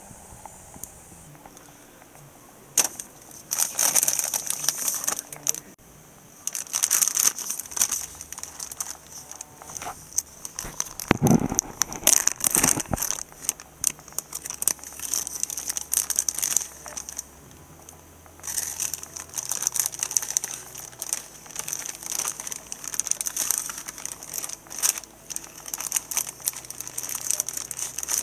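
Plastic zip-top bag crinkling and rustling in repeated bursts as pieces of flathead catfish are handled inside it, starting about three seconds in.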